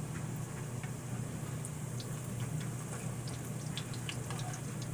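Potato pancakes shallow-frying in hot vegetable oil in a skillet: a steady sizzle with scattered small pops and crackles, over a steady low hum.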